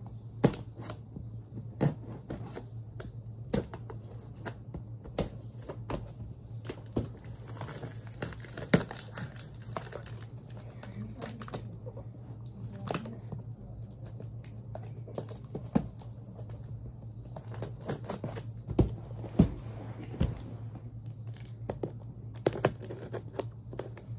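Scissors cutting open a cardboard shipping box: an irregular run of sharp snips and clicks, with stretches of cardboard and tape tearing and crinkling, over a steady low hum.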